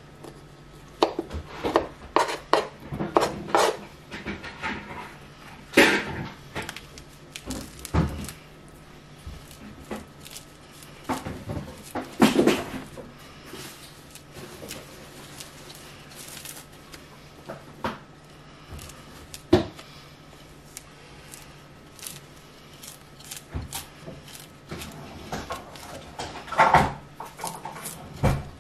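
A kitchen knife cutting fruit on a plastic cutting board: irregular taps and knocks of the blade against the board, coming in short clusters. Later there are quieter scrapes of the knife cutting and pulling the peel from an orange.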